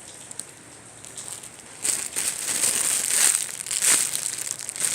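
Plastic wrapping of a squishy toy crinkling as it is handled and opened, starting about two seconds in.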